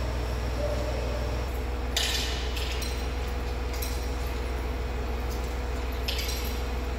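Steady low hum of a railway station concourse, with a few short clinks and rustles. The loudest comes about two seconds in and another near the end.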